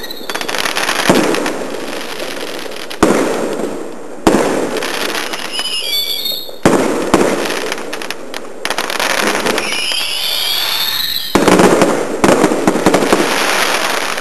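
Fireworks display: a series of sharp bangs from bursting shells, a second or more apart, each with an echoing tail. High wavering whistles from whistling fireworks come about six seconds in and again about ten seconds in. Near the end comes a rapid run of crackling bangs.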